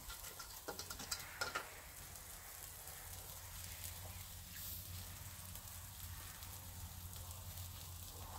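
Pork souvlaki skewers sizzling over a charcoal grill: a faint, steady hiss of fat cooking, with a few sharp crackles in the first second and a half.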